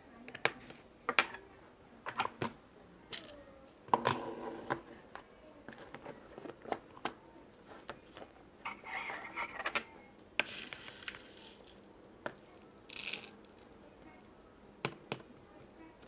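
Beads being handled, clicking and clattering against each other in a series of separate sharp clicks. There are a few short rattling bursts in the middle, the loudest about thirteen seconds in.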